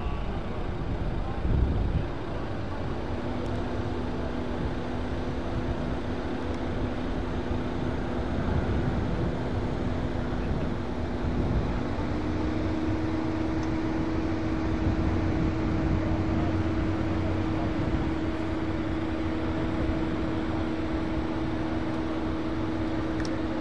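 C-27J Spartan's two turboprop engines and propellers droning steadily through a low display pass, a rumble with a hum that rises in pitch about halfway through. A brief low thump, the loudest moment, comes about a second and a half in.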